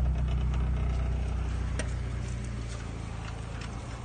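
A motor engine running steadily with a low hum, growing fainter over the few seconds, with a few faint clicks over it.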